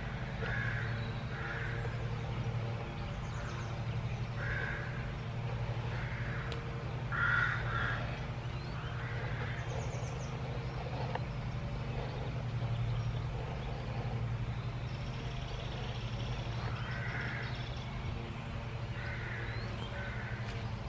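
Crows cawing repeatedly, a call every second or two, over a steady low hum.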